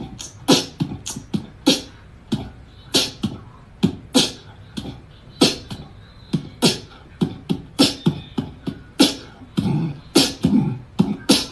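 Plastic slide slippers on a cat's feet slapping and clacking on a wooden floor as it walks: an uneven run of steps, about two or three a second.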